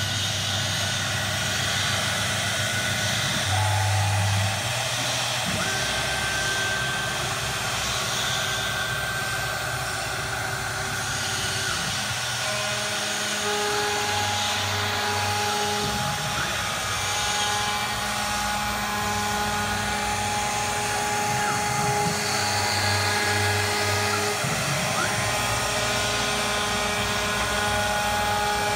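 Three-spindle CNC router running: a high-speed spindle whines as its bit routes grooves into a wooden board, with hissing cutting noise. Steady motor tones change pitch and switch on and off several times as the gantry moves along the cut.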